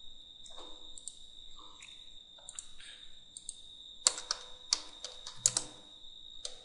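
Computer keyboard typing: a scatter of soft key clicks, with a louder run of keystrokes about four seconds in.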